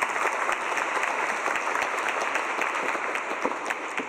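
Audience applauding to welcome a speaker to the stage, many hands clapping at once; the clapping thins out near the end.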